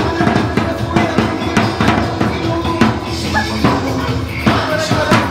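Drum-heavy Sinulog-style dance music from a loudspeaker, with a steady beat of about two strokes a second.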